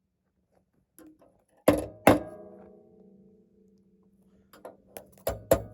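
Hammer blows on a hot 3/8 inch rebar knife blank being forged. Two ringing strikes come about a second and a half in, the metal ringing on for over a second, then a quicker run of blows near the end.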